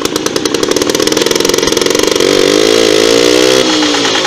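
An old Soviet tractor's small two-stroke pony (starting) engine running just after a cord pull-start, with a rapid, even firing beat. About two seconds in it speeds up with a rising pitch, and near the end its pitch drops suddenly.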